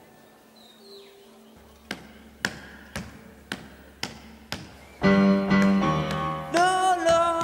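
Sharp taps keeping a steady beat of about two a second, then upright piano chords ringing out over them from about five seconds in, with a second chord near the end whose notes bend up as they begin.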